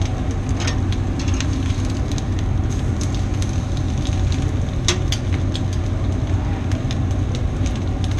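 Chicken breast sizzling and crackling over the open flames of a restaurant grill, with scattered sharp pops, the loudest about 5 s in, over a steady low hum.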